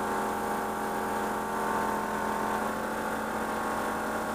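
DR Air Pro Flow 12 V portable air compressor running steadily as it inflates a tyre, a constant humming drone with a fast pulsing underneath. The Nissan Patrol's idling diesel engine, which powers it, runs along behind.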